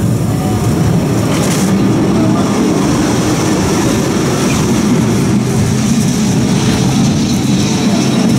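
Classic two-axle Lisbon tram running along its rails: a steady, loud rumble of wheels and running gear with no break.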